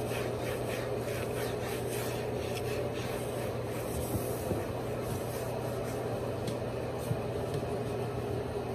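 A cloth wiping a kitchen countertop, with repeated rubbing strokes that thin out after about three seconds, over a steady low hum.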